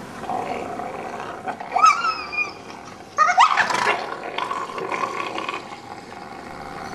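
Wolf pup squealing in protest at an adult wolf that guards a resource and has snapped at it. A short high cry that rises and falls comes about two seconds in, then a louder rising cry, trailing into a lower steady whine.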